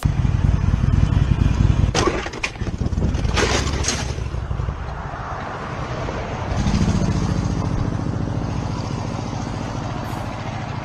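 Motorcycle engine running under way with a low pulsing rumble, broken by several sharp cracks about two to four seconds in.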